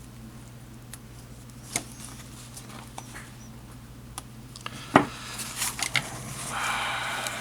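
Hand-stitching a nylon strap onto a backpack: scattered small clicks and a sharp knock about five seconds in, then a longer rasping rustle near the end, over a steady low hum.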